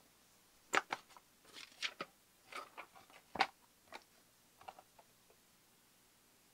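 Clear plastic packaging and paper being handled by hand: a scattered run of short crinkles and clicks over the first five seconds, then quiet room tone.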